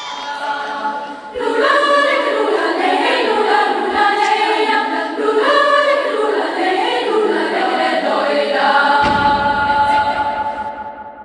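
A choir singing, several voices together in harmony. A low rumble comes in about nine seconds in, and the singing fades out near the end.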